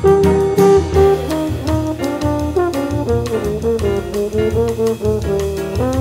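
Jazz background music: a sliding horn melody over a bass line, with a steady ticking beat.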